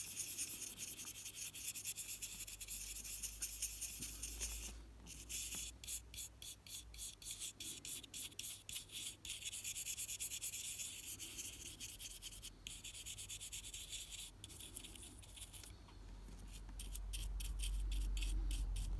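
Soft fibre cleaning pen scrubbing the circuit board of a vintage Casio 51QR-19 LCD watch, a steady run of quick scratchy rubbing strokes as dirt is worked off the board. A low rumble swells near the end.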